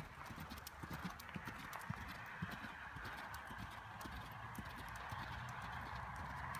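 Hoofbeats of a ridden horse moving on a sand-and-gravel arena: soft, dull thuds in an uneven rhythm. A steady hiss underneath grows louder toward the end.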